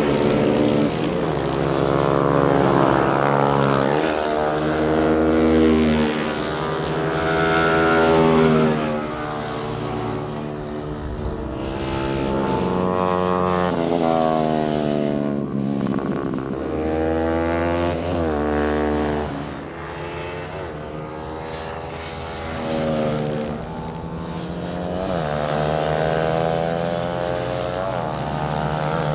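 Racing motorcycle engines revving hard as the bikes pass, the pitch climbing again and again and dropping at each upshift, with several engines overlapping at times.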